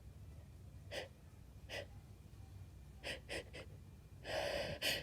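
A woman's short breaths between sneezes in a sneezing fit: two single breaths, then three quick ones in a row. Near the end comes a longer gasping inhale, the catch of breath that builds toward the next sneeze.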